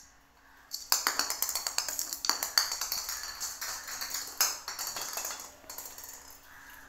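Orange plastic ball rolling and clattering across a tile floor: a rapid run of light clicks and taps starting about a second in and dying away near the end.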